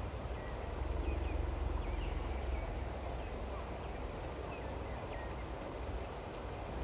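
Faint, high peeping of mallard ducklings, a few short calls scattered through, over a steady low rumble.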